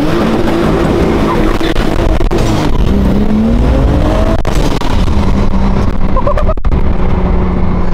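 Single-turbo BMW engine swapped into a Subaru WRX, heard from inside the cabin while the car accelerates: the engine note rises and falls through the gears, climbs hard about three to four seconds in, then holds a steadier pitch near the end, over heavy road and wind noise.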